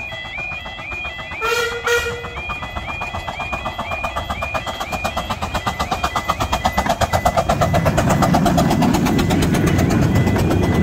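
Level crossing alarm warbling steadily while a 15-inch-gauge miniature steam locomotive, RH&DR No. 3 "Southern Maid", gives a short whistle about one and a half seconds in. Its rhythmic exhaust beats then grow louder as it approaches, and its carriages rumble across the crossing near the end.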